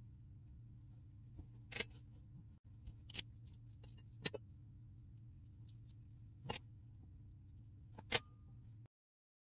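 A metal spoon clinking against a glass mixing bowl five times, spaced a second or two apart, while scooping dumpling filling, over a low steady hum. The sound cuts out near the end.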